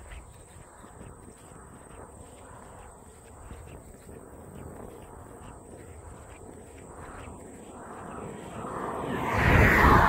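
A small hatchback car approaching from behind and passing close by, its tyre and engine noise swelling over the last two seconds and peaking right at the end as it goes past.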